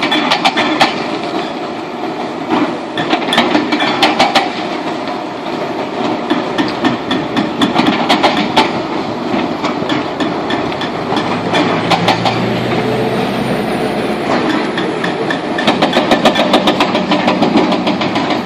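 Demolition excavator at work, its engine running steadily under several bursts of rapid, evenly spaced knocking and clattering, the longest near the end.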